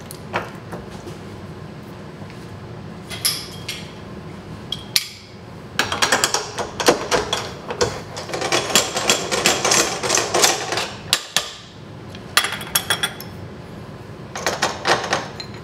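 Metal-on-metal taps, knocks and clinks as tooling is handled and changed in a milling machine's spindle; the machine itself is not running. They come in short clusters, densest through the middle.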